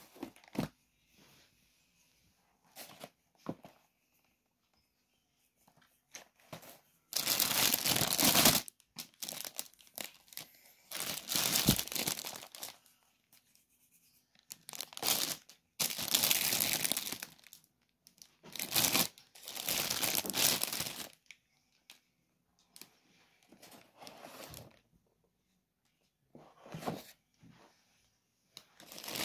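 Plastic and cardboard food packaging crinkling and rustling as grocery items are picked up and moved, in several bursts of one to two seconds with near-silent gaps between.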